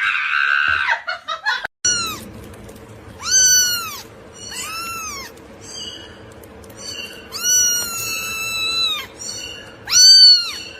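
A cat meowing over and over: a series of high, arching meows, one long drawn-out meow in the middle, the loudest near the end.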